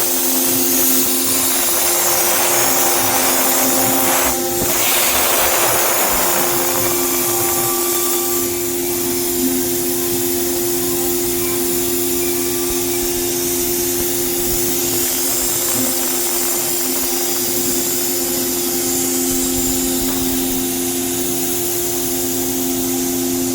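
CNC router running: a steady whine over a loud hiss, the hiss heavier in the first several seconds.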